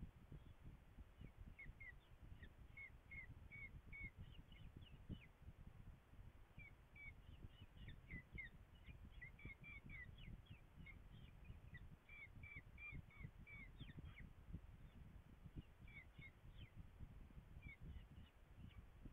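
Faint, repeated short high-pitched calls of a falcon chick begging while being fed, coming in quick clusters that thin out near the end, over a low wind rumble on the microphone.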